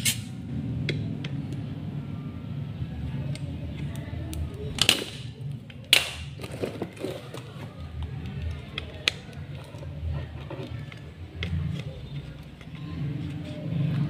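Faint background music, with a scatter of small ticks and two sharp clicks about five and six seconds in, as a spring-loaded desoldering pump is fired while a fuse resistor is desoldered from a washing-machine control board.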